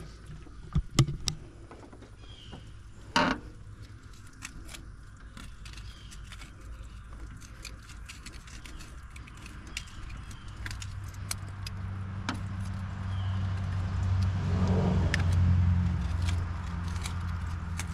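Scattered light metallic clicks and taps, with one louder knock about three seconds in. From about ten seconds in a low steady hum comes up and grows louder.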